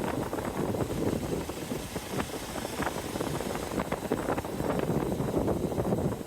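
Hero XPulse 200 Pro single-cylinder motorcycle being ridden over a rough dirt trail: the engine runs under wind noise, with frequent short knocks and rattles from the bumpy ground.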